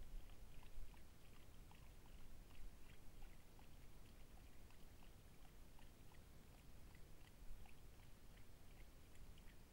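Faint, irregular wet clicking of mountain lions lapping water from a tub, over a low steady hiss.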